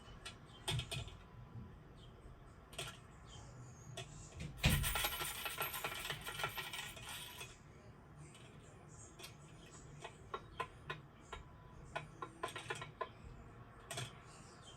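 Light clicks and clinks of small hard objects being handled and set down, with a burst of rustling noise from about five to seven and a half seconds in.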